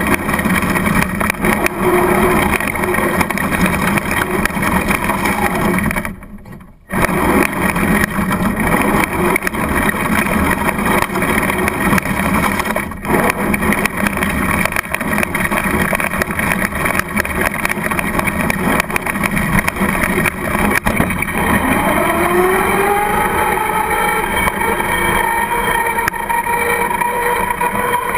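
Traxxas Slash radio-controlled truck driving fast, heard from a camera mounted on the truck: a steady rush of tyre and drivetrain noise over gravel, which drops away briefly about six seconds in. In the last third, on smooth pavement, a motor whine rises in pitch as the truck speeds up, then holds.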